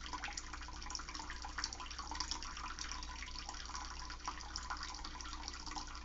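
Water running steadily from a tap, a constant splashing hiss with a low steady hum underneath.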